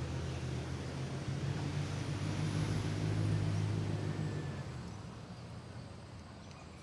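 An engine running with a steady low hum, fading away from about four and a half seconds in.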